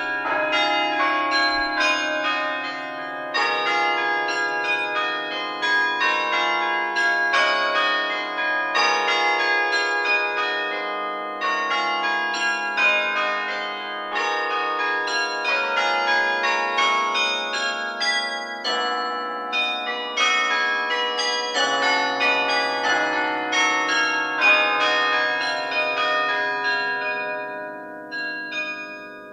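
Carillon bells played from the baton keyboard: a quick, dense succession of struck bell notes that ring on and overlap one another, fading away near the end.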